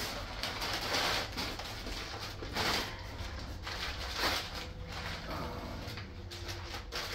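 Crumpled brown packing paper rustling and crinkling in several bursts as it is pulled out of a box and unwrapped from a pulley.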